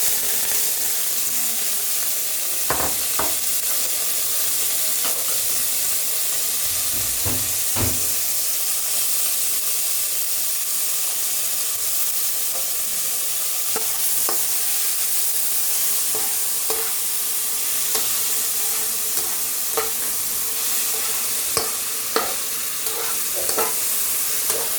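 Marinated pork frying in hot oil with garlic and onion, a steady sizzle. Scattered clicks and scrapes of stirring against the pan come through, a few about 3 and 8 seconds in and more often in the second half.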